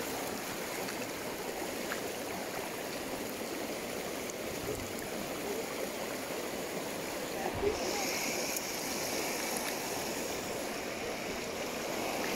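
Shallow river water running steadily over stones, a continuous rushing hiss.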